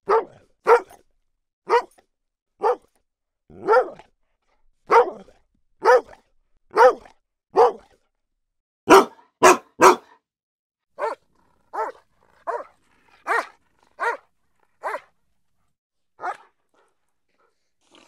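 Dog barking in single, separate barks about once a second, then three quick barks in a row about nine seconds in. A slightly quieter run of about six barks follows, with a last lone bark near the end.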